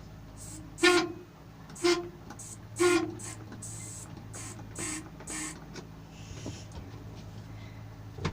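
The diesel engine of a distant John Deere bulldozer or track loader runs with a steady low drone. Three loud, short, pitched blasts come about a second apart near the start, and two fainter ones follow a few seconds later.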